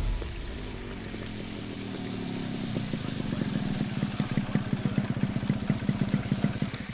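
Motorcycle engine running at low speed as the bike rides up and pulls in, its steady beat of firing strokes growing louder, then cutting off near the end.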